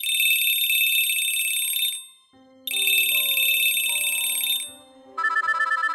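A bell ringing rapidly in three bursts of about two seconds each, the last one lower in pitch, over quiet sustained music notes that come in about two seconds in.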